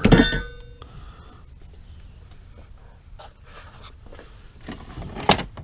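A small cast-metal electric motor set down with a clunk and a short metallic ring, then faint scraping and handling noise, and a sharp knock about five seconds in.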